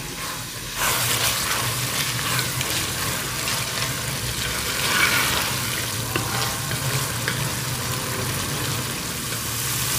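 Black chickpeas frying in desi ghee and spice masala in a hammered metal pot, sizzling steadily while a wooden spoon stirs them, with a few faint scrapes of the spoon. This is the bhuna stage, with the chickpeas fried until the ghee separates from the masala.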